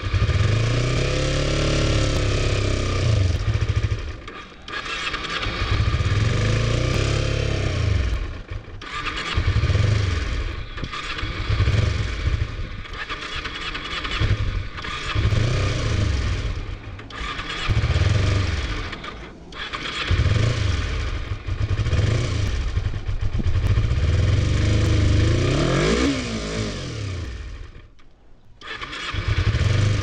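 Kawasaki Ninja 250R's parallel-twin engine running roughly in repeated uneven surges, revving up and sagging every second or few, struggling to keep running. It revs up once near the end, then nearly dies away.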